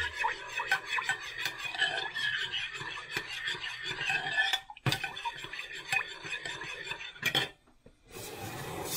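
A spoon stirring soy sauce and balsamic vinegar in a small container, clinking rapidly against its sides, with a sharper knock about five seconds in and another a couple of seconds later before the stirring stops.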